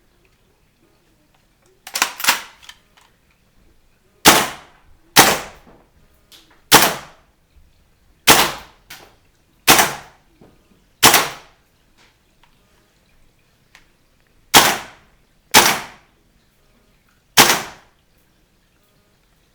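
AR-15-style gas blowback airsoft rifle firing single shots, about eleven in all, mostly a second or so apart with the first two in quick succession. Each shot is a sharp crack with a short tail.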